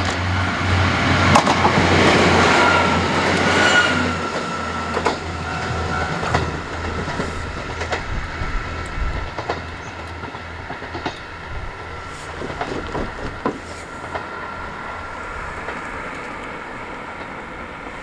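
Two-car KiHa 11 diesel railcar set passing close by and pulling away. Engine drone and wheel-on-rail noise are loudest in the first few seconds, then single wheel clicks over rail joints come about every second as the train fades.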